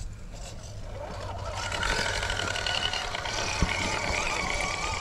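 Fusion SE 1800KV brushless motor and geartrain of a Traxxas TRX4 RC rock crawler whining as the truck drives. The whine builds in about a second and a half in and wavers in pitch with the throttle.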